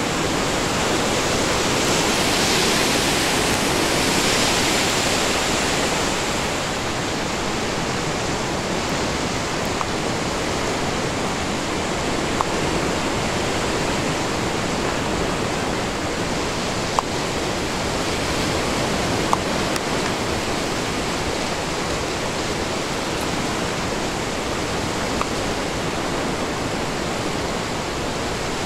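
The Athabasca River rushing over a rocky bed: a steady wash of water noise, a little louder and brighter for a few seconds near the start, with a few faint clicks later on.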